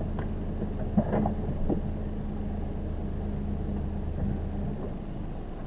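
Steady engine hum of a Daihatsu Ayla's 1.0-litre three-cylinder engine heard from inside the car's cabin as it drives slowly. A few faint clicks or knocks sound about a second in.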